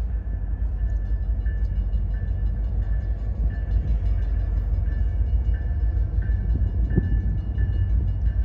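Norfolk Southern train 11Z rumbling past on street trackage, with a bell ringing steadily just under twice a second over the low rumble.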